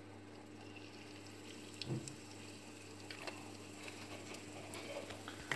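Faint sizzling and crackling of hot oil in a kadai just after a pinch of asafoetida has gone in, with a soft knock about two seconds in.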